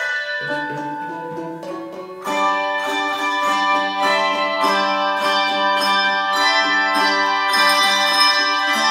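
Handbell choir playing a piece: many bells struck together in chords, each note ringing on. Lower bells come in about half a second in, and the music grows fuller and louder about two seconds in.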